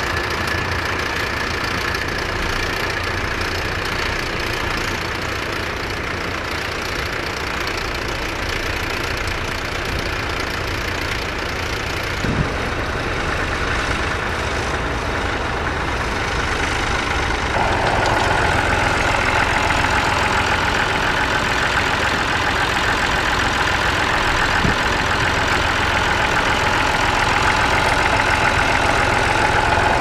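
Vintage tractor engines running steadily while ploughing. About two-thirds of the way in, a nearer engine comes in louder and stays: a vintage Massey Ferguson tractor pulling a plough close by.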